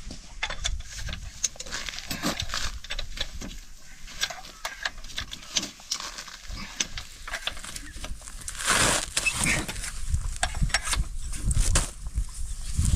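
Irregular metal clicks and knocks of a car jack being turned with a pry bar in place of its lost crank handle, lifting the front of the car, with a longer scraping rush about nine seconds in.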